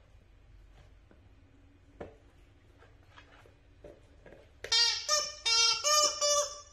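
Miniature dachshund whining in about five short, high-pitched cries in quick succession near the end, after soft taps of a plastic disc being nosed and pawed on a leather sofa.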